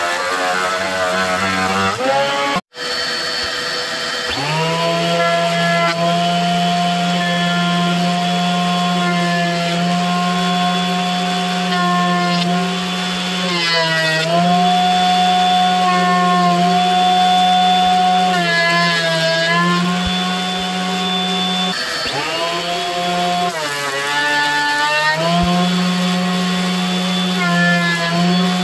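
A Craftsman benchtop jointer running for the first couple of seconds, then, after a brief cut, a benchtop thickness planer running with a steady motor whine while curly maple boards are fed through. Its pitch sags and wavers several times as the cutterhead takes each board.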